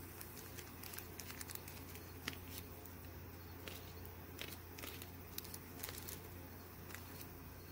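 Faint crinkling of small plastic zip-lock bags being handled and opened by hand, with scattered light clicks, over a steady low hum.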